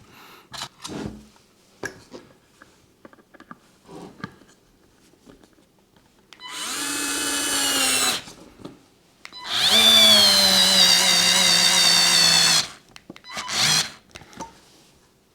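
Parkside PARS 4 A1 4-volt cordless stick screwdriver's motor whirring as it drives screws, in three runs: one of about a second and a half, a longer one of about three seconds whose pitch sinks slightly as it goes, and a short burst near the end. Light clicks and handling come before the first run.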